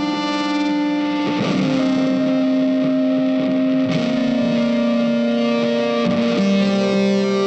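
Background music: long held guitar notes with effects, moving to a new note every couple of seconds.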